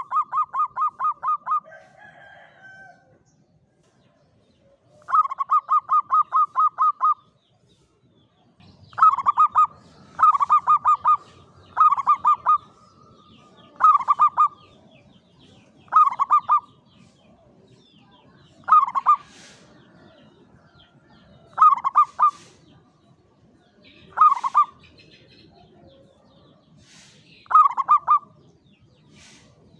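Zebra dove cooing: fast runs of soft staccato coos. It starts with two long trilled phrases, then from about a third of the way in sings shorter phrases roughly every two seconds.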